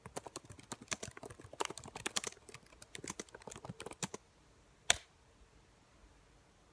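Typing on a computer keyboard: a quick, irregular run of key clicks for about four seconds, then a pause and one louder single click about five seconds in.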